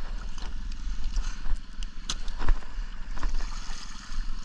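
Water splashing and sloshing as sockeye salmon are worked out of a set gillnet in shallow water, with a couple of sharp knocks about two seconds in.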